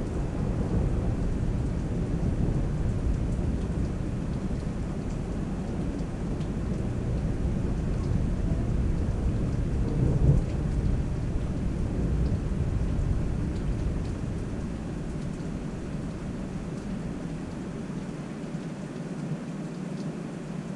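A long roll of thunder that swells to its loudest about halfway through, then fades away over the last few seconds, with rain falling steadily throughout.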